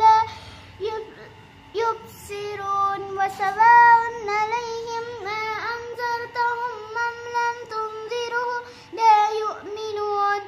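A young girl reciting the Quran in a melodic chanted style: long held notes with ornamented turns in pitch, in phrases separated by short pauses.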